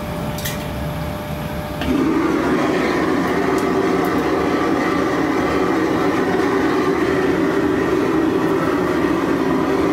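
Gas burner of a restaurant wok range at full flame: a loud, steady rush that comes up suddenly about two seconds in and holds.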